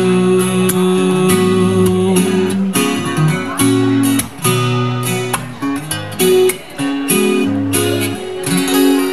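Solo acoustic guitar playing the closing instrumental of a song, with strummed and picked chords ringing out.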